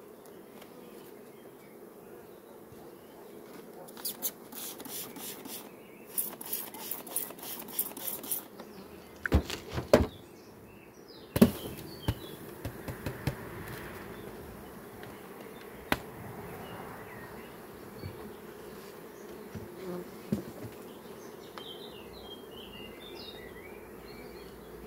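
Honey bees buzzing steadily at an open hive. A run of clatters and sharp knocks comes in the middle, the loudest about ten and eleven seconds in, with a few lighter knocks later.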